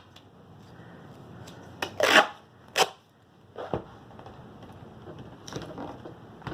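Patterned duct tape being handled: a few short rips and rustles, the loudest about two seconds in and another shortly after, then softer crinkles.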